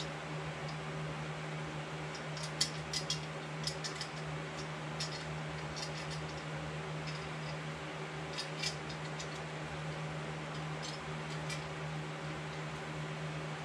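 Light clicks and taps of small parts and tools handled on a chainsaw under repair, coming in small clusters over a steady low hum.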